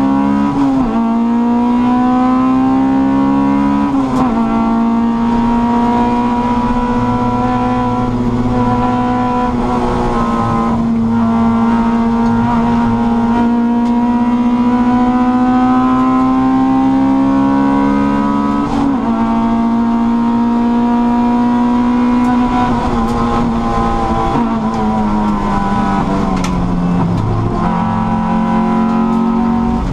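Racing Honda Civic's four-cylinder engine at high revs, heard from inside the cabin: the note climbs slowly and drops sharply at several gear changes, then falls away with a couple of short blips late on, as when braking and shifting down.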